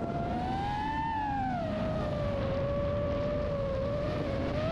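FPV quadcopter's electric motors and propellers whining: the pitch rises over the first second, then falls and holds nearly steady as the throttle eases, over a steady rush of air noise.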